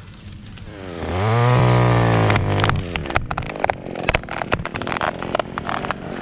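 Chainsaw revving up to full throttle about a second in and cutting through the top of the tree, then easing off about three seconds in. A run of sharp cracks and snaps follows as the wood at the hinge gives and the top tips over.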